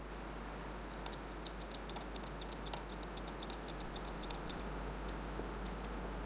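Hydraulic bottle jack in a homemade press being pumped: a quick run of light clicks, about six a second, for a few seconds as the ram rises, then a few scattered clicks, over a steady background hiss.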